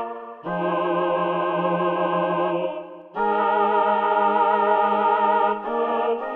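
Yamaha MODX synthesizer playing a preset as held chords, with a new chord about half a second in, another near the middle, and another near the end.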